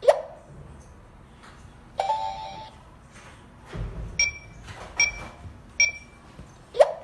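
Electronic beeps from a home burglar alarm unit: a short tone about two seconds in, then three short high beeps less than a second apart. A sharp click sounds at the start and again near the end.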